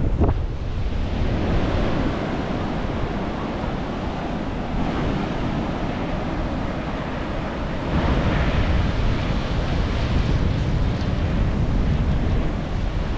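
Ocean surf breaking and washing up the beach, with wind buffeting the microphone as a low rumble. The wash swells louder about eight seconds in.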